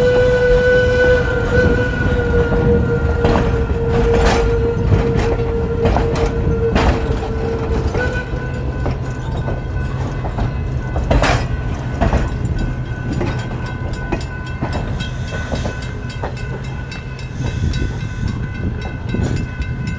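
Skunk Train passenger cars rolling slowly past, their steel wheels clacking over rail joints every second or so over a steady rumble. A steady high-pitched squeal runs through it and shifts in pitch about halfway through.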